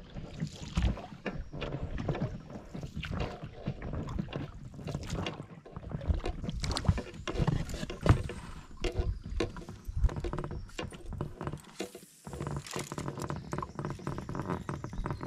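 A small boat being rowed, with irregular splashes and knocks of the oars.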